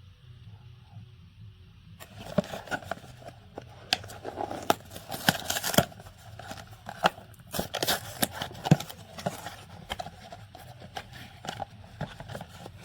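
The box of a new OEM oil filter being opened and its packaging handled: irregular scraping, tearing and crinkling with many sharp clicks, starting about two seconds in.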